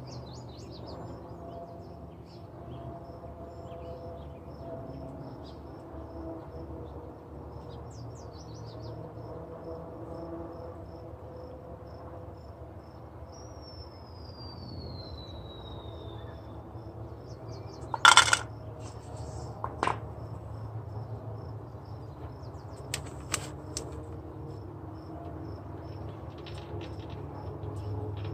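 Outdoor background with a faint insect chirp repeating steadily a couple of times a second, and a single falling whistle near the middle. About two-thirds of the way through comes a sharp clink, the loudest sound, then a weaker click and a couple of light clicks later.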